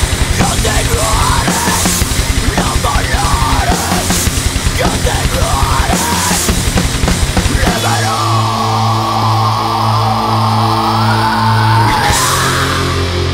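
Loud rock music soundtrack with fast, driving drums. About eight seconds in, it changes to held low notes under a wavering lead line.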